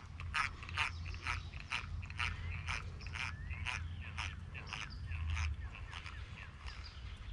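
Antique 1950s Luxor spinning reel being cranked, its mechanism clicking steadily at about three clicks a second as the lure is reeled in.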